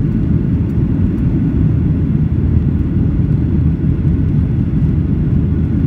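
Steady low rumble inside the cabin of a Boeing 737 climbing out after takeoff: its jet engines at climb power and the rush of air past the fuselage.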